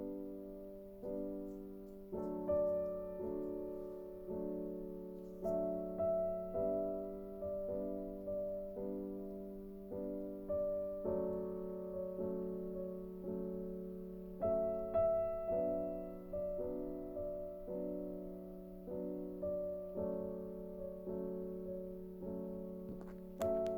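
Background piano music: soft chords and notes struck at an even pace, each fading before the next.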